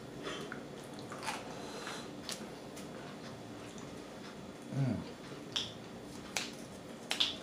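Close-up eating sounds: faint scattered mouth clicks and smacks from chewing a grilled chicken burrito, with a brief low hum about five seconds in.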